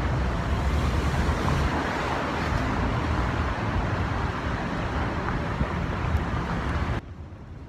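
Wind rumbling and buffeting on the microphone, a loud rushing noise heaviest at the low end, cutting off suddenly near the end.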